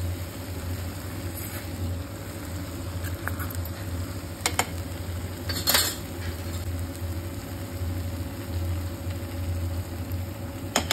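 Diced potatoes, peas and tomato frying in a pan, with a steady low hum underneath. Two sharp clicks come from the cookware, about 4.5 and 6 seconds in.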